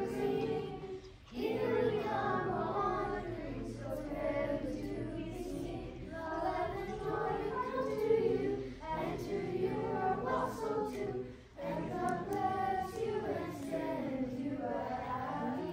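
A group of children singing a Christmas carol together, with short breaths between phrases about a second in and again about eleven seconds in.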